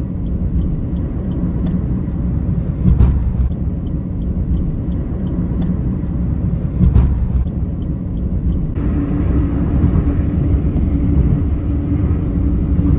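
Taxi cabin road noise while driving at highway speed: a steady low rumble of engine and tyres, with a couple of brief thumps. A steady hum joins about nine seconds in.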